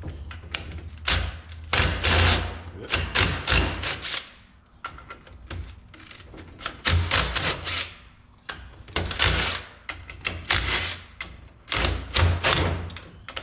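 Cordless impact driver run in short bursts on the bolts of a 48RE transmission pump assembly, rattling with each pull of the trigger, about a dozen bursts with pauses between them.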